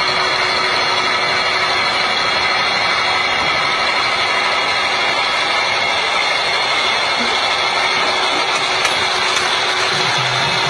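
Horizontal DTH (down-the-hole) rock drilling rig drilling into rock, with the electric-motor drive turning the drill rod as it feeds forward. It makes a loud, steady, unbroken mechanical noise.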